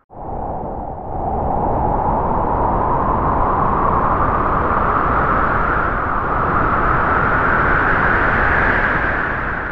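Howling wind ambience: a steady rush whose pitch swells slowly upward and sinks again near the end. It starts abruptly about a tenth of a second in, after a short silence.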